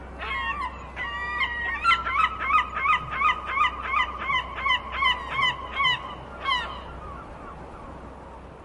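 Seagull calling: a few separate cries, then a fast run of about fifteen repeated calls, roughly three a second, that stops about six and a half seconds in.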